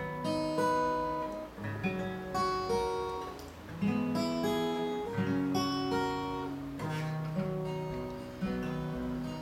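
Steel-string Yamaha acoustic guitar played solo as a song's instrumental intro, picked and strummed chords changing every second or so.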